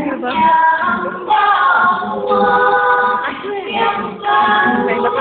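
Mixed choir singing, several voice parts holding chords together in short sustained phrases.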